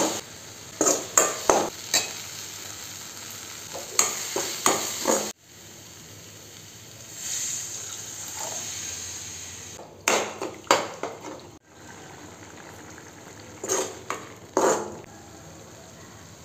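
A metal spoon scraping and knocking against a metal kadai while stirring frying tomato masala, over a low steady sizzle. Partway through, water is poured into the pan with a soft rush, followed by a few more scraping strokes.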